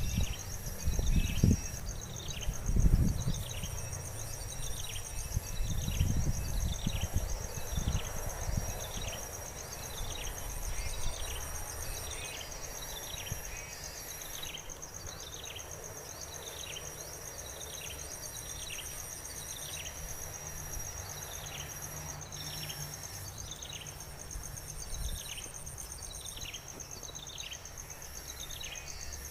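Outdoor insect chorus: a steady high buzz with pulsing cricket-like trills, over which a falling chirp repeats a little more than once a second. A few low thuds in the first few seconds.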